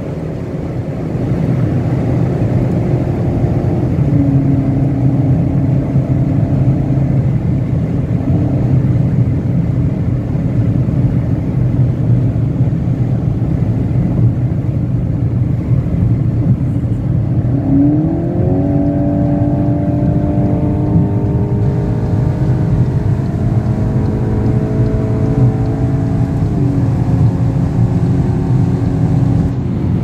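Volkswagen Golf 8 GTI Clubsport's turbocharged 2.0-litre four-cylinder heard from inside the cabin at speed, over a steady rush of road and wind noise. The engine note steps down about four seconds in, climbs sharply as the car accelerates about eighteen seconds in, holds, and falls back near the end.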